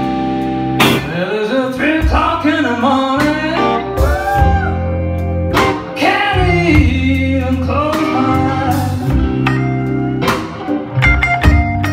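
Live blues band playing: a man singing over electric guitars and a drum kit, the drum hits marking a steady beat.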